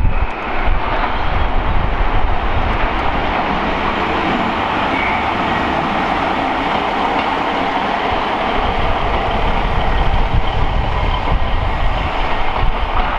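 Transport for Wales diesel multiple unit running past on a nearby line: a steady, loud rolling noise of the moving train.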